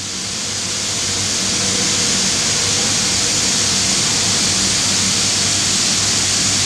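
Copper smelter works noise while molten metal is tapped from a furnace: a steady, loud hissing rush with a faint low hum beneath, swelling over the first two seconds and then holding even.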